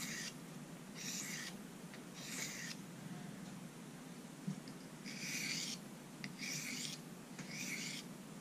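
Victorinox Tinker Swiss Army knife blade drawn across a bench sharpening stone: a soft scraping hiss on each stroke, about six strokes roughly a second apart, with a pause in the middle. These are light-pressure finishing passes, just enough pressure for the stone to cut, to refine the edge after the burr has been raised.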